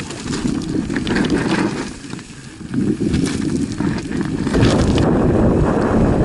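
Mountain bike rolling over rough, stony singletrack, with irregular clicks and rattles from the bike over the bumps and heavy wind buffeting on the camera's microphone. About four and a half seconds in, it changes to a steadier, louder wind rush.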